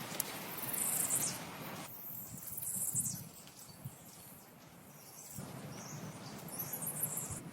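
Outdoor background noise with high-pitched chirping near the start and again near the end; the background drops suddenly about two seconds in and comes back a few seconds later.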